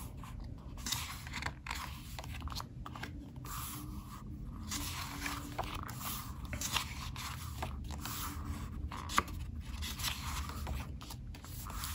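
Pages of a K-pop album photobook being turned and handled: irregular paper rustling and scraping, many short page movements one after another.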